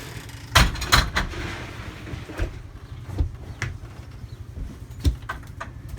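A series of knocks and clanks in a cow stall as a heifer is moved out: two loud ones close together about half a second in, then lighter scattered knocks, over a low steady hum.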